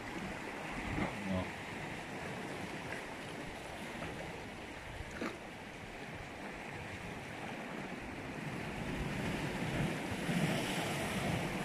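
Sea waves washing against shoreline rocks, with wind on the microphone; a couple of faint knocks about a second in and again about five seconds in.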